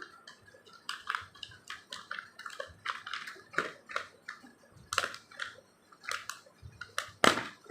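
Irregular clicks and crinkles of a toy and its plastic packaging being handled, about a dozen in a few seconds, the loudest near the end.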